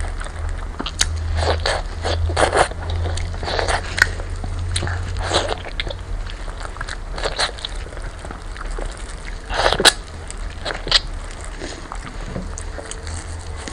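Close-miked eating: biting and chewing braised lamb leg, with irregular wet clicks and smacks over a steady low hum.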